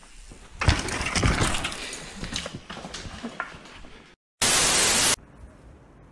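A mountain-bike crash: a sudden impact less than a second in, then a run of clattering knocks and scraping as rider and bike go down and slide through the dirt, dying away over about three seconds. After a brief dropout comes a short burst of loud, even static-like hiss.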